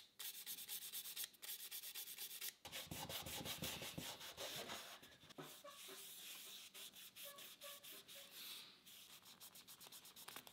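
A small bristle brush and a cloth scrubbing dust and grime off wooden clock gears and parts, in quick, scratchy back-and-forth strokes.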